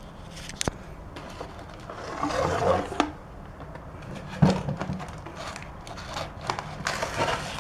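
Handling noise from a fireworks kit's shell canisters and mortar tube being moved about: scraping and rustling with a few sharp clicks and a knock about four and a half seconds in.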